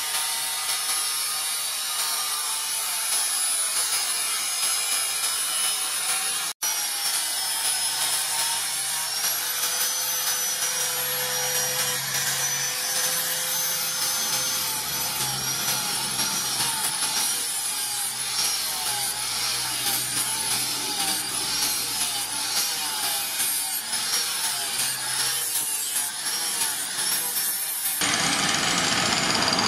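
Electric angle grinder with a sanding disc grinding and smoothing a steel sword blade cut from a motorcycle brake rotor. The motor's high whine wavers up and down as the disc is pressed onto the metal and eased off.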